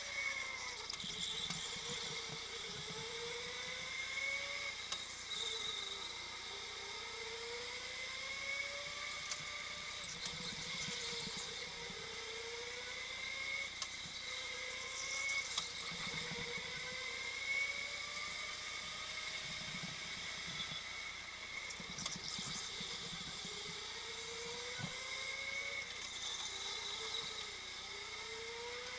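Indoor go-kart motor whining as the kart laps, its pitch rising as it accelerates and dropping as it slows for each corner, over and over.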